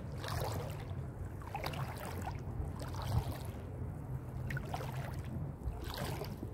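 Feet sloshing through shallow seawater, a soft splash roughly every second, over a low steady rumble.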